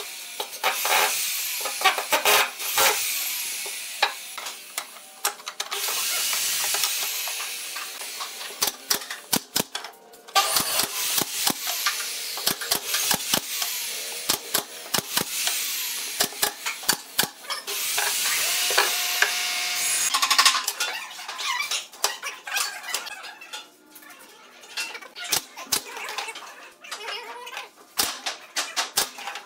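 A cordless impact driver runs in bursts as it drives screws into pine boards. Later a pneumatic brad nailer fires many sharp shots into the wood, some in quick runs, with stretches of steady hiss in between.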